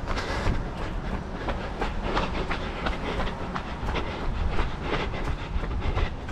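A runner's footsteps on a paved lane at running pace, about three strides a second, over a steady low rumble.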